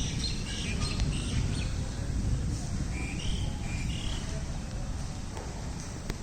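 Steady rushing noise of heavy rain, with birds chirping a few times during the first four seconds.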